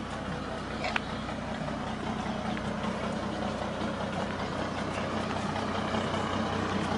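A pickup truck's steady mechanical hum, typical of an idling engine or hydraulic drive, as its rig tilts a huge wall of speakers up off the bed. It gets slowly louder, with one short click about a second in.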